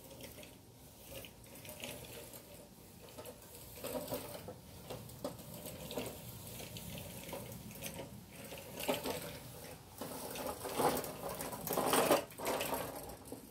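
Harbor Freight wheeled magnetic sweeper rolling and rattling over a concrete driveway, with irregular clicks and clatter that grow louder toward the end as it comes close.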